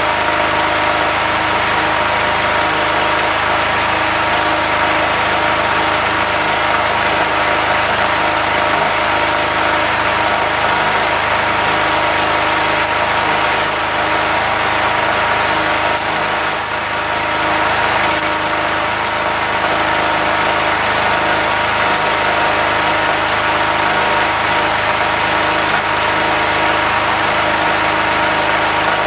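Stick welding arc crackling steadily from a small inverter welder with a 2.6 mm electrode, over the steady running of a Multipro GG 3900 portable generator carrying the welder's load. The loudness dips briefly about halfway through.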